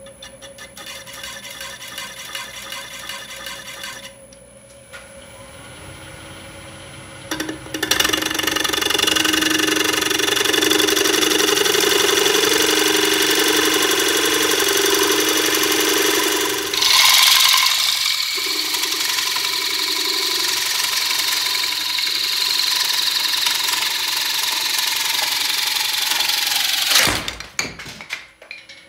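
A woodworking power tool cutting wood. A lighter rhythmic sound in the first few seconds, then a loud, steady run with a wavering pitch from about seven seconds in, which changes about seventeen seconds in and stops suddenly near the end.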